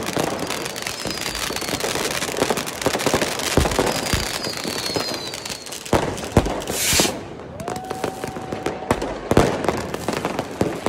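Street fireworks: firecrackers and rockets going off all around in a dense, overlapping crackle, with several sharp loud bangs. Thin falling whistles from rockets, a short hiss about seven seconds in, and a held whistle tone lasting over a second.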